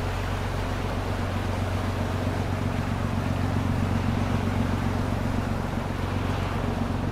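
A boat's engine running steadily, a low even hum, under a haze of wind and water noise.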